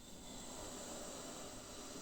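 Faint, airy breathing of a sleeper in the pause between snores, swelling slightly in the middle and easing off again.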